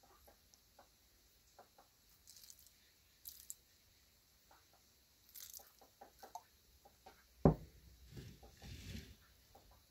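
Light tabletop handling sounds: faint scattered ticks, then one sharp knock on the table about three-quarters of the way in, followed by a brief low rustle.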